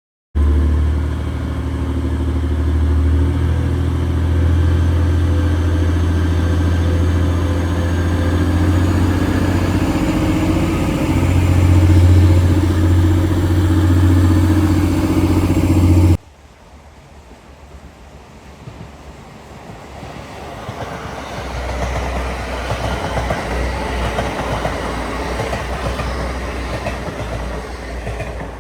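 A train running: a loud, steady low drone for about sixteen seconds, then a sudden cut to a quieter recording in which train noise builds again from about twenty-one seconds in.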